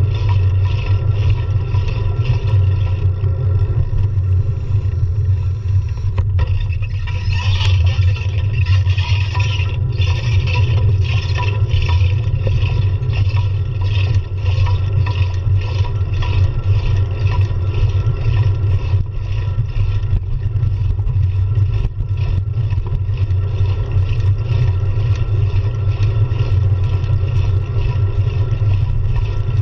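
Riding noise from a road bicycle picked up by a handlebar-mounted GoPro: a loud, steady low rumble of wind and road, with a constant rattle of small clicks from the bike and mount over the pavement. A brighter hiss grows louder between about 7 and 12 seconds in.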